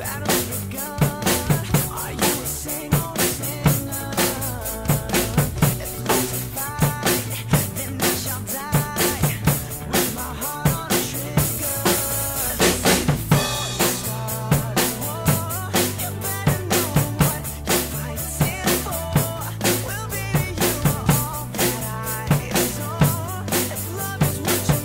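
Acoustic drum kit with Planet Z cymbals played in a steady rock beat, kick and snare with cymbals on top, over a recorded backing track. A long, bright cymbal crash rings out about twelve seconds in.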